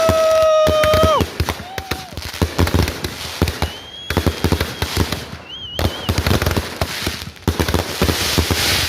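Fireworks going off: a dense, irregular run of sharp firecracker cracks and pops, with a couple of short high whistles midway. A long shouted "woo" overlaps the first second.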